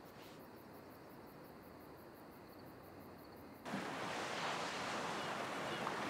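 Faint quiet ambience, then, about three and a half seconds in, a sudden change to the steady rushing noise of sea surf on a beach, with a few faint high chirps over it.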